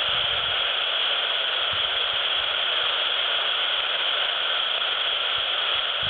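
Steady static hiss from a CB handheld radio (Albrecht AE 201S) on SSB, with no station coming through: the open receiver's band noise between transmissions.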